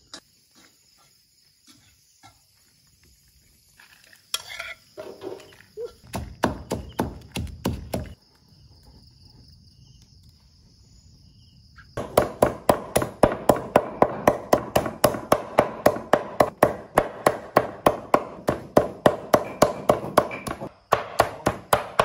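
A cleaver mincing meat on a thick round wooden chopping board: fast, even chops, about four or five a second, that start abruptly about halfway through. Before that there are only scattered quieter knocks and rustles, with insects trilling steadily in the background.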